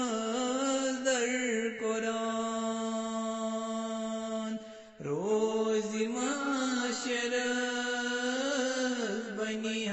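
A solo voice chanting a Kashmiri devotional qalaam, holding long sustained notes. About halfway through it breaks off briefly, then comes back sliding up in pitch.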